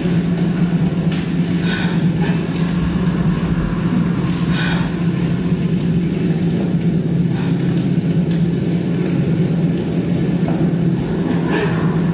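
A steady, unbroken low electronic drone from a multi-channel sound installation, with a few short, higher sounds breaking in over it.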